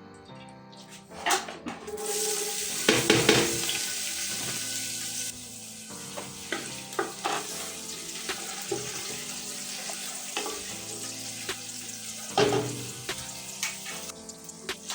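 Food sizzling in a hot pan while a spoon stirs it, scraping and knocking against the pan. The sizzle starts about two seconds in, eases a little a few seconds later and stops shortly before the end.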